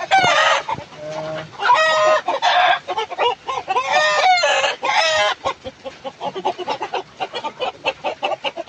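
Village chickens clucking and squawking loudly: several drawn-out calls in the first five seconds, then rapid short clucking.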